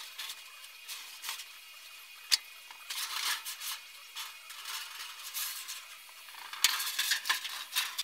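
Thin sheet metal rattling, clicking and scraping as it is slid into a box and pan brake and positioned under the clamping fingers. There is a sharp metallic click about two seconds in, and bursts of rattling around three seconds and again near the end.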